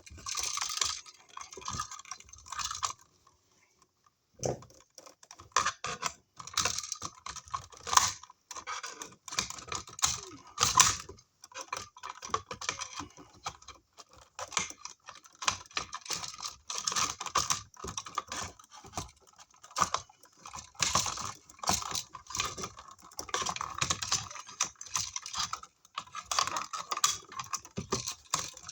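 Dense, irregular clicking and crackling of electrical cable and hand tools being handled at an outlet box, with a brief pause a few seconds in.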